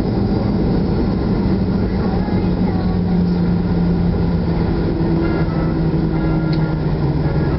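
Loud cabin noise of a Boeing 737-800 rolling out on the runway after landing: its CFM56 engines and a steady rumble. An engine hum slowly falls in pitch as the aircraft slows.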